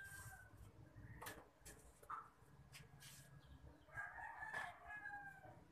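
Faint rooster crowing: one crow trailing off just after the start and another starting about four seconds in, with a few soft clicks between.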